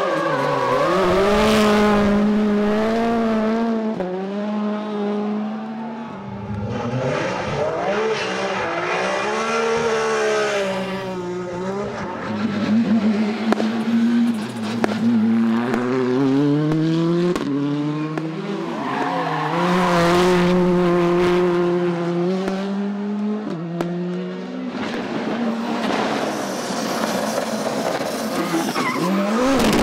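Rally cars driving past on a stage one after another, engines revving hard, with the pitch climbing and dropping through gear changes and lifts every few seconds.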